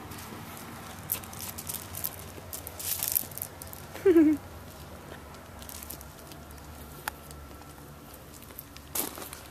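Puppy chewing and nosing at gravel, small pebbles clicking and crunching in scattered bursts, with a brief falling-pitched sound about four seconds in.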